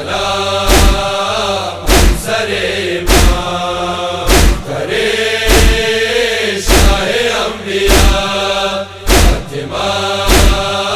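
A Hazaragi Persian noha, a Shia mourning lament, chanted by voice over a heavy, deep beat that falls about every 1.2 seconds and keeps the matam rhythm.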